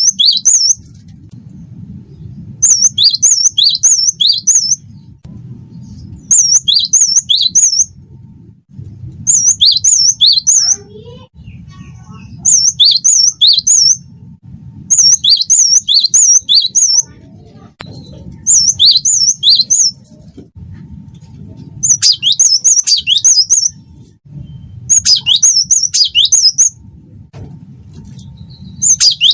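Cinereous tit (gelatik batu, 'wingko' song type) singing: bursts of about a second and a half of quick, repeated high notes that sweep down in pitch, coming every two to three seconds over a low steady hum.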